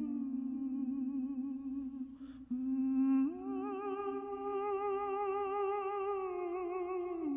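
Humming voice holding long notes with vibrato. A higher held note joins about three seconds in and slides down near the end.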